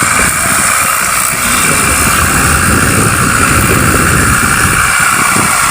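Pressure washer running steadily, its high-pressure water jet spraying onto a motorcycle.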